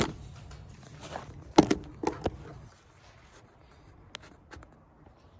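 Handling noise from a phone being moved and set in place: a couple of sharp knocks and scrapes about a second and a half in, then a few faint ticks.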